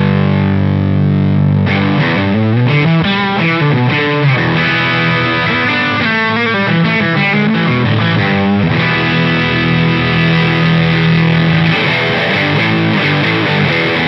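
Overdriven electric guitar: a Crews LED-1959 Les Paul-style guitar through a Fish Circuits Model One overdrive pedal (drive, top and body at noon, N mode) into a Fender Deluxe Reverb. A ringing chord, then a run of single-note riffs, then a chord held for the last few seconds. The tone is thick in the bottom and low mids, an Orange-amp-like British rock crunch.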